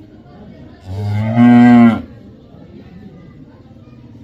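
A cow mooing once, a single call of about a second that swells louder partway through and stops abruptly.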